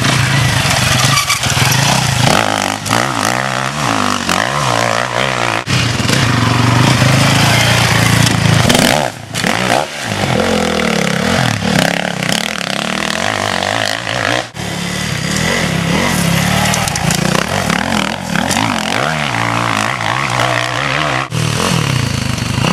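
Dirt bike engines revving hard and easing off as riders accelerate through corners, the pitch rising and falling again and again. The sound changes abruptly several times where one clip gives way to the next.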